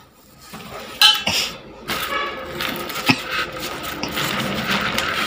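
Metal tube parts knocking and clinking, with a sharp clink about a second in and another about three seconds in. From about two seconds in, cardboard scrapes and rustles steadily as parts are slid out of a flat box.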